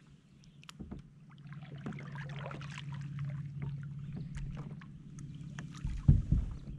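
Kayak paddle strokes splashing and dripping in calm water over a low steady hum, then a few loud knocks about six seconds in as the paddle is set down across the kayak.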